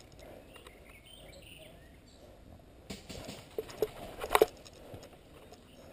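Faint bird chirps in the first couple of seconds, then a quick cluster of sharp clicks and knocks about three to four and a half seconds in, the loudest a pair of knocks near the end of that cluster.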